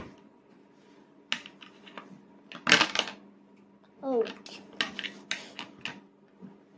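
A child's spoon tapping and scraping on a plastic plate: several sharp clicks, the loudest about three seconds in and a quick run of them near the end. A short voice sound about four seconds in, over a steady low hum.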